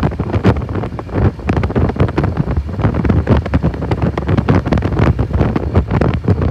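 Wind buffeting the microphone on a moving vehicle at road speed: a loud, irregular rumble full of gusty pops.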